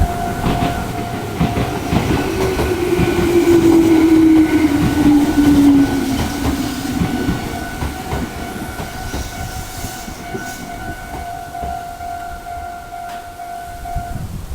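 A Meitetsu electric train passes the level crossing: its wheels clack over the rail joints and a falling motor whine is heard as it goes by. The noise peaks about four to six seconds in and then fades. The crossing's electronic warning alarm rings steadily alongside and cuts off near the end as the crossing clears.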